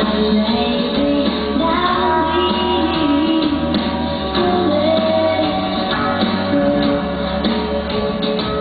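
Pop song with a woman singing over a steady bass line and backing instruments.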